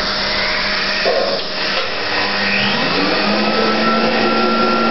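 Automatic popcorn vending machine running after being operated: a steady whooshing motor-and-air noise over a low hum, with a higher motor tone that rises in about halfway through and then holds steady.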